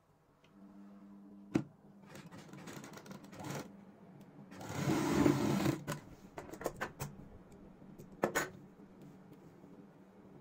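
Domestic sewing machine stitching a cloth strip onto fabric, running in a few short runs, the longest and loudest about five seconds in, with sharp clicks in between.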